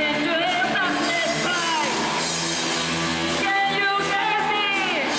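Live rock band playing: a woman singing lead over electric guitars and a drum kit.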